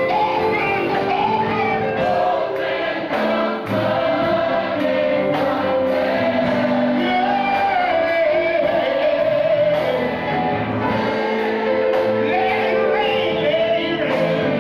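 Live gospel singing: a man leads the song into a microphone with other voices joining, over steady held chords of accompaniment.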